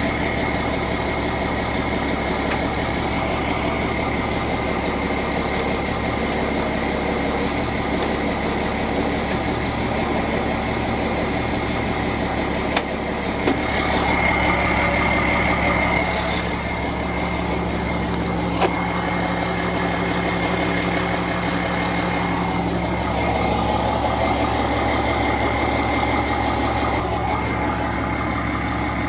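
Tow truck engine idling steadily, swelling slightly for a couple of seconds about halfway through, with a few short clicks.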